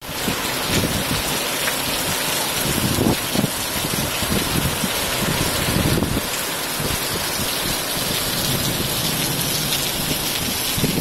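Heavy rain falling steadily, a dense hiss of drops on paving, grass and foliage.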